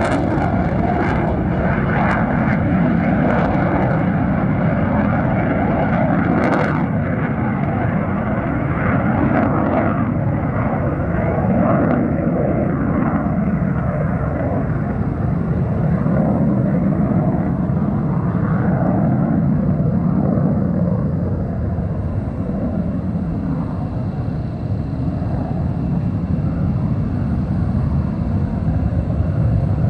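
F-15C Eagle fighters' Pratt & Whitney F100 turbofan jet engines at takeoff power as the jets lift off and climb away: a loud continuous jet roar. It crackles sharply for the first ten seconds or so, then settles into a duller steady rumble as the aircraft gain distance.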